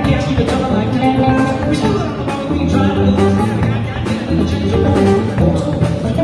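Live blues-rock band playing: hollow-body electric guitar, electric bass, drum kit with steady cymbal and snare hits, and a Yamaha electric keyboard.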